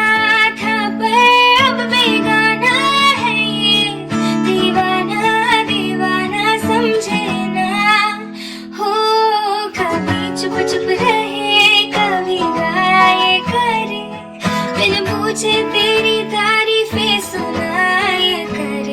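Background music: a song with a woman singing over plucked acoustic guitar.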